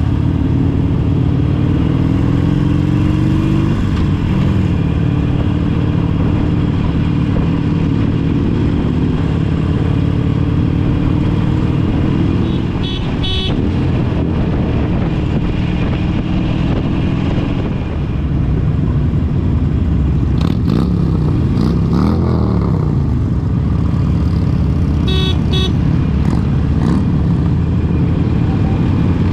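A procession of motorcycles riding past, their engines running and revving, the pitch rising and falling as bikes go by. Short horn toots come a little before midway and again near the end.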